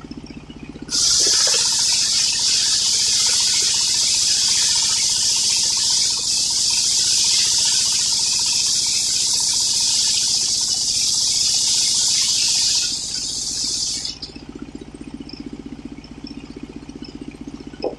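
Homemade sawmill's circular saw blade cutting through an old coconut-palm log: a loud, steady high hiss starts about a second in, lasts about thirteen seconds and stops. The engine driving the saw runs on its own before and after the cut.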